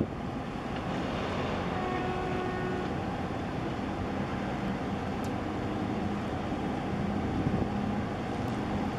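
Steady low rumble of a large container ship moving past at close range, mixed with wind and water noise. A brief steady tone with overtones sounds about two seconds in.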